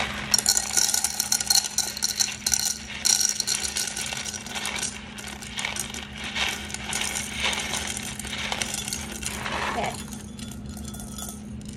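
Dry elbow macaroni poured from a cardboard box into a ceramic mug: hard pasta pieces rattling and clinking against the mug and each other, thinning out near the end, over a steady low hum.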